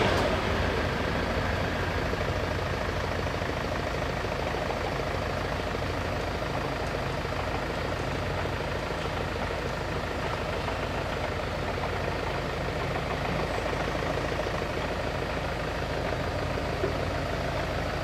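A heavy vehicle's engine idling with a steady low hum. The noise of the passing train fades away in the first second.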